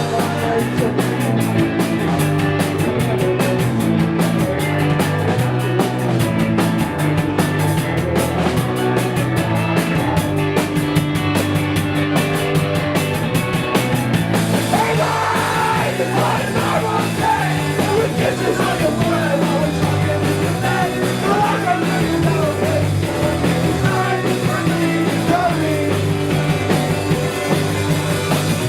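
Live rock band playing steadily at full volume. About halfway through the high cymbal wash thins out and a voice comes in singing.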